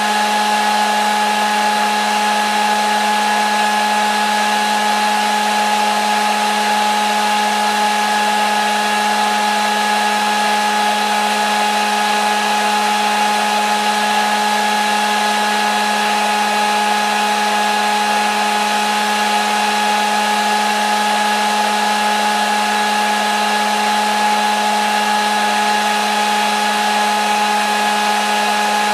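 Hair dryer running steadily on one setting: an even rushing of air with a steady motor whine, unchanging throughout.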